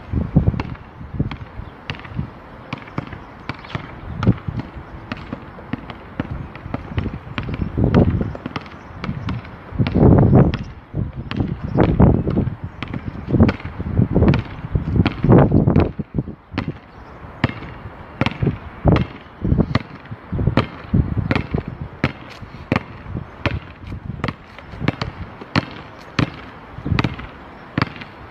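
Basketball bouncing again and again on a hard outdoor court, sharp bangs about one or two a second, with a few heavier, deeper thumps in the first half.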